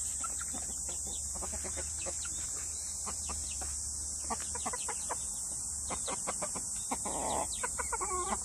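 Silkie chickens clucking in short, quick calls as they peck at feed, with a louder, rougher squawk about seven seconds in and a pitched call near the end.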